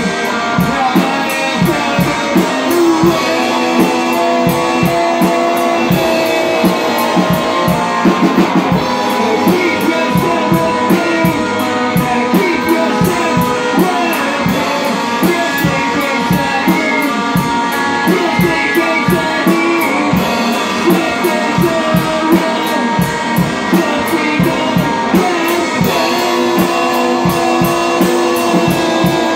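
Electric guitar and drum kit playing rock together live, a steady drumbeat under held guitar notes and chords.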